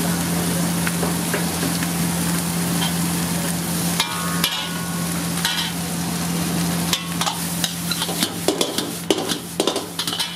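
Vegetable hakka noodles stir-fried in a wok: a steady sizzle over a constant low hum. From about four seconds in, a metal ladle knocks and scrapes against the wok, the strikes coming thick and fast near the end.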